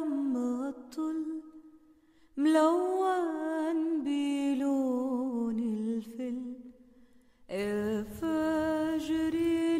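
A slow Arabic song: a solo voice singing long, held, wavering notes, breaking off briefly twice.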